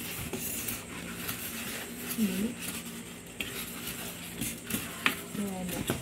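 Styrofoam packing inserts and plastic foam wrap rustling and scraping against a cardboard box as they are handled, with scattered clicks and a sharp knock about five seconds in.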